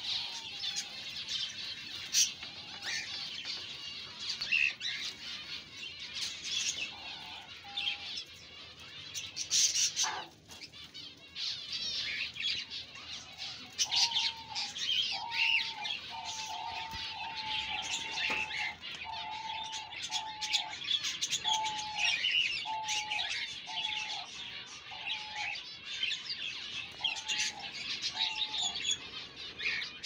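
A mixed aviary flock of budgerigars and zebra finches chirping and chattering, many high calls overlapping without pause. From about halfway a low, even hooting note repeats about one and a half times a second beneath the chatter, and there is a single sharp knock about a third of the way in.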